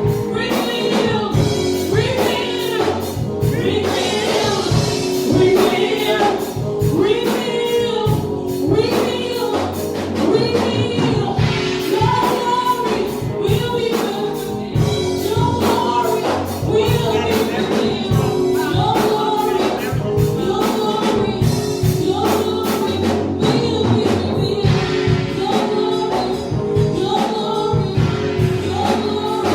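Gospel choir singing over a steady beat of drums and percussion.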